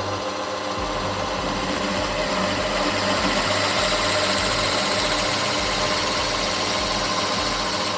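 Drill press running steadily as a 13 mm bit bores through a golf ball, cutting long spiral chips from its rubber core.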